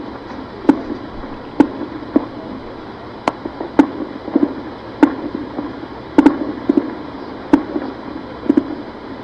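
Distant gunfire: about a dozen single shots at irregular intervals, each with a short echo, over a steady background hiss.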